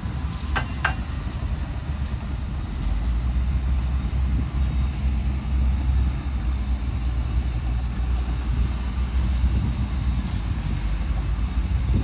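Heavy diesel dump truck engines running steadily as a low rumble that grows somewhat louder about three seconds in, with two sharp metallic clinks about half a second in.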